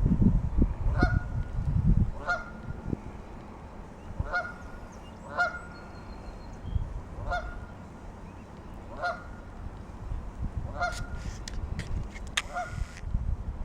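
Two geese honking: single short honks spaced about one to two seconds apart, about eight in all. A low rumble runs under the first two seconds, and a few sharp clicks come near the end.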